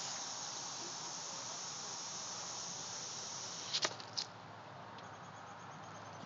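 Lawn sprinkler head spraying water with a steady high hiss; about four seconds in a few sharp clicks come and the hiss drops off to a faint one.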